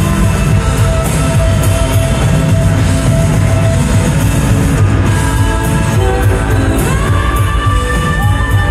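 Live indie-pop band playing loud and steady: electric guitars, drums with regular cymbal hits, and keyboards, heard from within the audience in a concert hall.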